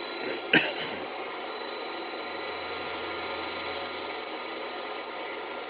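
Steady rushing, machine-like background noise with a thin, steady high-pitched tone over it, and a single sharp click about half a second in.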